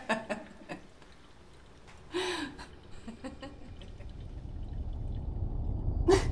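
A few light clicks of cutlery on plates and a short hum-like voice sound, then a low rumble that swells steadily toward the end.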